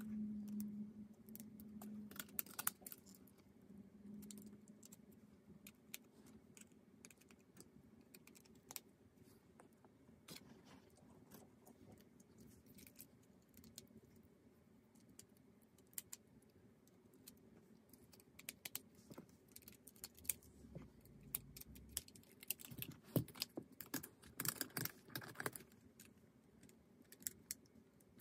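Lego Technic plastic parts clicking and rattling as they are handled and fitted, in scattered light clicks that come thicker and louder a few seconds before the end.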